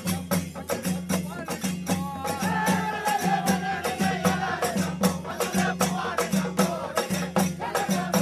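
Fast, steady drumming from a Tamil festival drum ensemble, about six strikes a second, with rattling percussion. A wavering pitched tone rides over the beat from about two to five seconds in.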